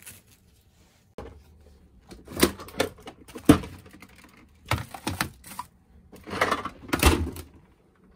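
Kitchen handling clatter as a stainless steel tray is put into a refrigerator: a string of sharp knocks and rattles against the fridge shelves and door, the loudest about halfway through.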